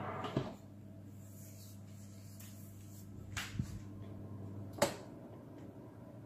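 A Bosch wall oven door shuts with a knock about half a second in. Then the running oven gives a faint steady hum, broken by two sharp clicks a second and a half apart.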